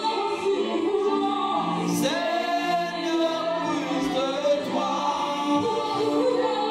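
Woman singing a gospel worship song, amplified through a handheld microphone, over an accompaniment of long held chords.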